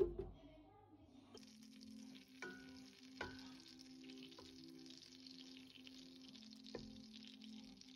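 Butter melting and sizzling in a stainless steel pot, stirred with a wooden spoon that knocks against the pot a few times; a steady sizzle sets in about a second and a half in, after a thump at the very start. Soft background music runs underneath.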